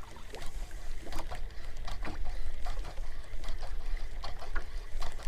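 Water lapping and slapping against the hull of a small fishing boat: irregular light splashes and ticks over a steady low rumble.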